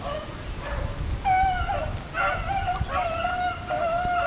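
Several rabbit-hunting dogs bay in long, drawn-out notes that overlap, starting about a second in: the pack giving voice as it runs a rabbit on scent.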